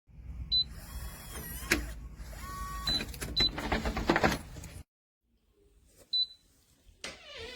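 TEEHO TE002 electronic keypad deadbolt giving short, high beeps, four in all, amid sharp clicks and the mechanical whirr and rattle of the lock being worked.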